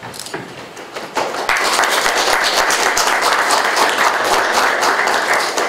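Audience applauding: the clapping starts about a second in, quickly builds to full and stops near the end.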